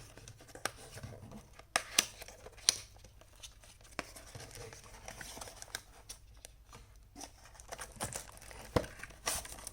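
A small cardboard product box being opened and its packaging handled: tearing and crinkling with scattered sharp clicks and scrapes, and a busier rustle near the end.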